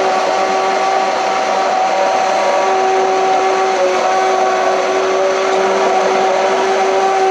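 Large commercial immersion (stick) blender running at a steady pitch while pureeing thick roasted pumpkin soup in a steel pot.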